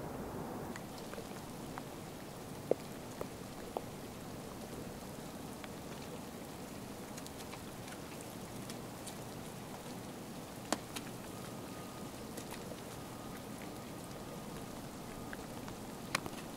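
Bull moose feeding on birch bark and twigs: a steady crackling hiss broken by a few sharp snaps and clicks.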